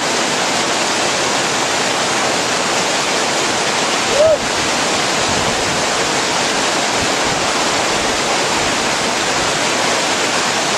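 Small waterfall in a mountain stream, heard up close: water pouring over rocks in a loud, steady rush. One short, louder bump about four seconds in.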